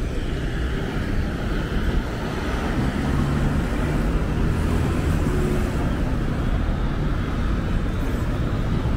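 Town street ambience: traffic running by with a steady low rumble.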